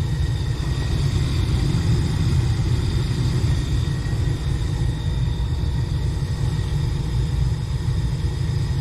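Gas furnace running with its burners lit and draft inducer motor on: a steady low rumble with faint steady tones above it. The blower motor is seized and stays off.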